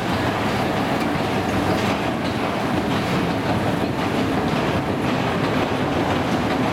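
1964 Asea-Graham escalator with its original steps running steadily under load: a constant mechanical rumble with a light clatter and a few faint clicks from the moving steps.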